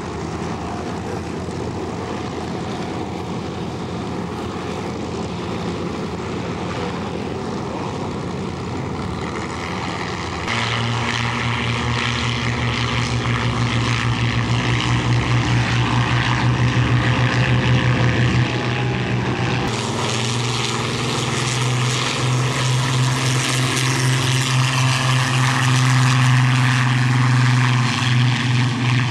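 Several Supermarine Spitfires' Rolls-Royce V12 piston engines running at high power for a formation takeoff run, a steady deep propeller drone. It grows louder about ten seconds in and stays strong through a cut near twenty seconds.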